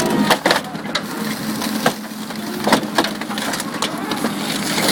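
An excavator crushing a Ford car's body: irregular cracks and crunches of the body giving way, with a few sharp snaps, over the steady hum of the excavator's engine.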